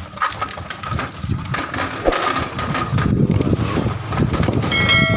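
Wheeled tyre-changing trolley rattling and rumbling as it is pulled over rough concrete, with a short bell-like ring near the end.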